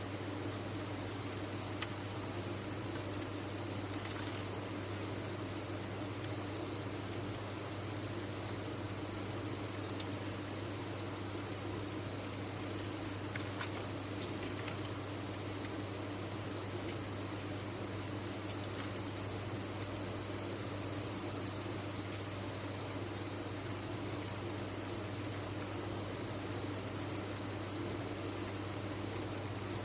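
A dense chorus of many farmed crickets chirping together, merging into one steady, high-pitched trill with no pauses.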